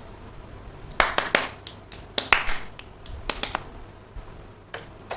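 Small hard plastic toy kitchen pieces clicking and knocking together as they are handled, in irregular sharp clicks with a brief rustle in the middle.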